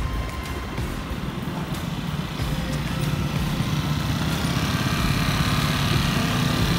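Street traffic of motor scooters: nearby scooter engines running in a steady low hum that grows a little stronger in the second half, over road and wind noise.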